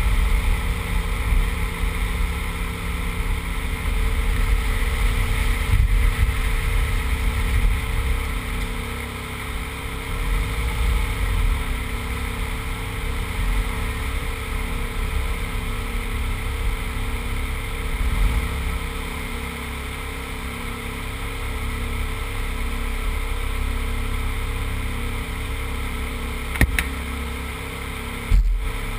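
A Subaru Impreza 2.5RS's 2.5-litre flat-four engine running at steady, low revs, with a heavy low wind and road rumble on the camera's microphone as the car rolls slowly over mud. Near the end there is one sharp tap.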